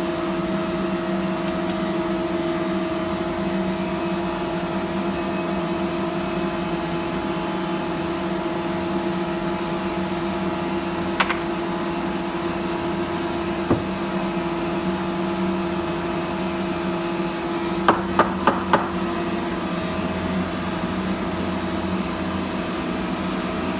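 Steady machine hum from CNC router shop equipment. It is broken by a couple of sharp single taps and, about 18 seconds in, a quick run of four taps, as of a tool being knocked or set down during a bit change.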